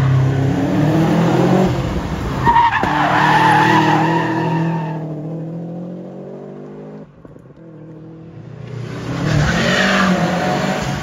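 Hillclimb car engine revving hard through the gears with tyres squealing as the car goes past, then fading away up the road about halfway through. Another loud engine and tyre noise builds up again near the end.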